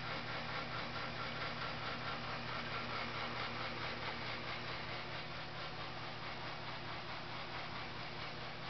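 Steady trickling of water into a basement floor drain, over a low steady hum.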